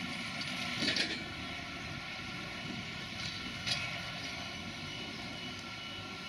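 Tractor diesel engine running steadily, with two brief knocks, about a second in and again near four seconds.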